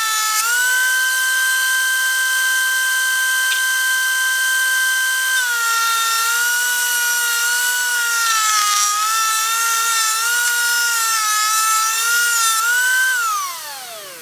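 DeWalt 13-inch thickness planer running with a steady high whine. From about five seconds in the pitch sags and wavers as a rough white oak board feeds through under load. Near the end the motor is switched off and winds down, its pitch falling away.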